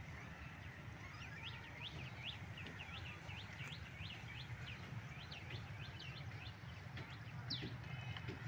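Small birds chirping over and over, short sharp chirps two or three a second, over a low steady rumble.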